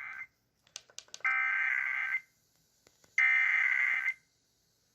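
Emergency Alert System SAME header: three bursts of harsh digital data tones, each about a second long with about a second between them. The first burst is just ending at the start, and a few faint clicks fall between the first and second bursts.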